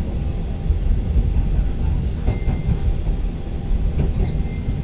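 Steady low rumble of a Stadler FLIRT-type ŁKA 36WED electric multiple unit running, heard inside the passenger carriage.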